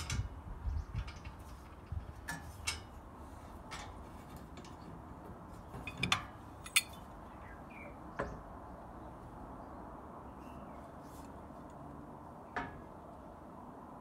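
Scattered metallic clicks and clinks of hand tools and a screw clamp against a metal awning frame, a handful of separate sharp knocks with quiet gaps between, the loudest about seven seconds in.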